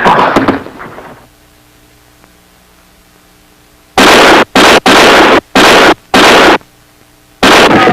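A volley of gunshots in a dramatised film scene: six loud, clipped shots in under four seconds, beginning about four seconds in. Before them, a loud burst at the start fades away over about a second.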